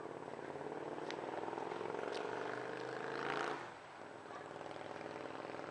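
An engine running steadily, its pitch creeping slightly upward, then falling away to a fainter hum about three and a half seconds in. Two brief high chirps sound over it.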